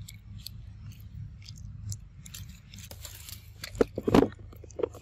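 Macaques chewing and biting food close to the microphone: scattered small clicks, then a cluster of loud crunching bites about four seconds in.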